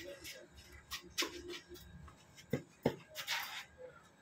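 Tennis ball knocks during a rally on a clay court: ball off racket and court, one knock about a second in and two in quick succession around two and a half seconds in, followed by a brief hiss.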